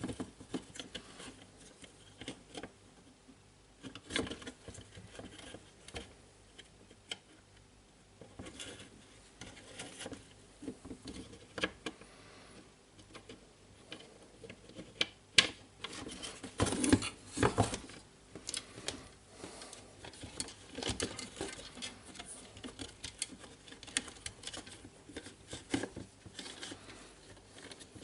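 Hands working on the plastic housing and small parts of a cordless jigsaw: scattered clicks, taps and light knocks, with a busier run of knocks about fifteen to eighteen seconds in.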